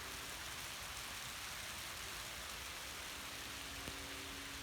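Rain falling steadily, an even hiss of raindrops, with one faint tap about four seconds in.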